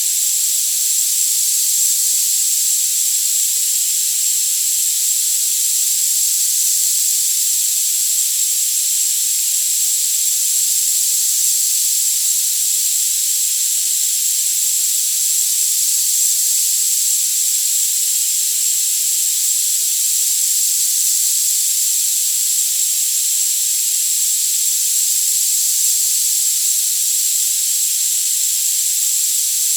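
Tinnitus-masking therapy sound: a steady high hiss with no low end, with a thin, very high tone held unchanged through it.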